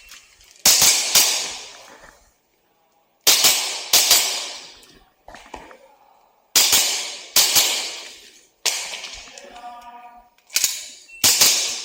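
WE G17 gas blowback airsoft pistol firing, mostly in pairs about half a second apart, with pauses of two to three seconds between pairs as the shooter moves from target to target.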